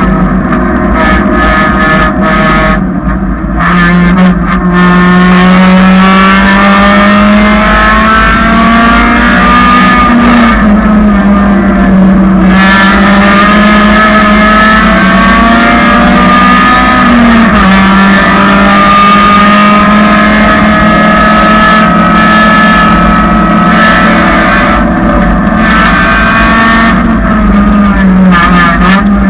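1999 Honda Civic's engine running hard at a track day, loud and steady, its pitch climbing slowly and dropping back a few times as it changes gear.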